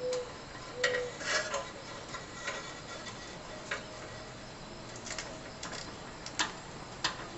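Irregular light clicks and taps of hands twisting and joining the electrical wires of a street-light fixture, with two short squeaks within the first second.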